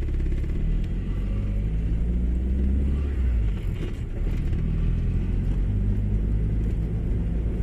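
Proton Wira's four-cylinder engine running steadily with a low, even sound after a fuel pump replacement cured its crank-but-no-start fault.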